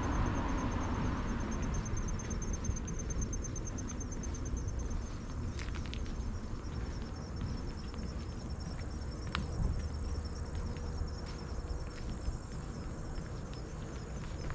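Insects, likely crickets, trilling in a fast, even high-pitched pulse over a steady low rumble, with a few faint clicks.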